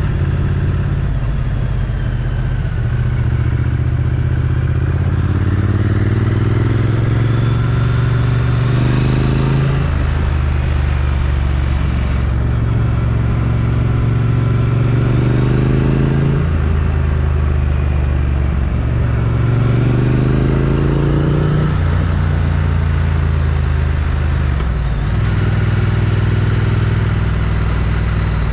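Triumph Street Twin's 900 cc parallel-twin engine with stock exhaust, running under way and revving up three times, each climb in pitch ending in a sudden drop.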